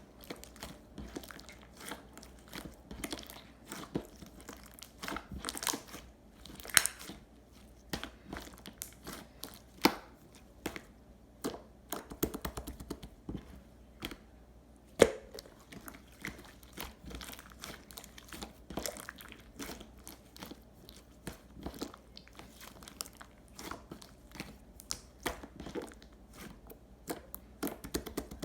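Clear pearl slime being squeezed, stretched and poked by hand, making irregular sticky clicks and small pops, with one louder pop about halfway through.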